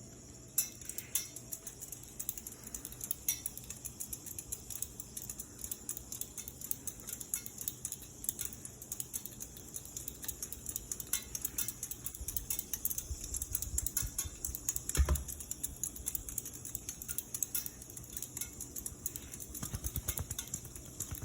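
Hunter Balboa ceiling fan running on medium speed, with a faint steady motor hum under a constant fast, irregular clicking. There is a low thump about fifteen seconds in.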